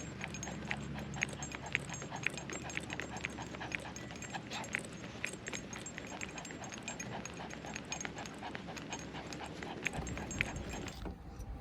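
A dog panting close up as it trots, with rhythmic ticks about two or three a second.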